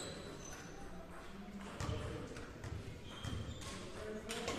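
A basketball bouncing and players' feet on a hardwood court, echoing in a large gym, with scattered thuds and a few sharp impacts, the loudest near the end.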